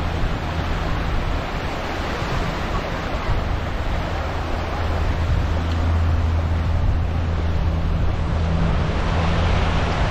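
Small waves washing onto a sandy beach, with wind buffeting the microphone. A steady low hum runs underneath.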